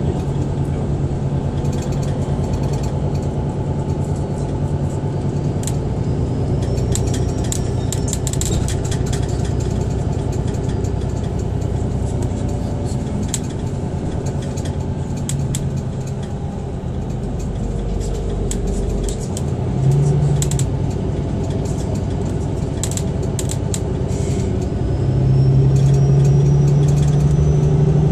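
Inside a city bus on the move: a steady low engine hum with light rattles and clicks from the bus body. The engine note grows louder near the end.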